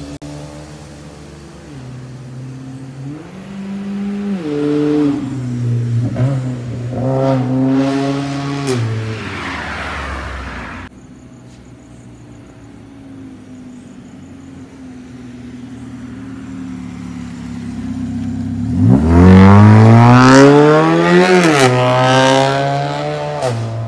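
Perodua Bezza with an aftermarket Akrapovic exhaust accelerating hard, its exhaust note climbing and dropping back in steps as it runs through the gears. The sound cuts off abruptly about halfway through. A second, louder run then climbs steeply, peaks, and falls away near the end.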